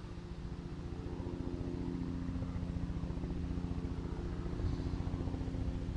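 An engine running steadily: a low hum with a fast, even pulse that doesn't change speed.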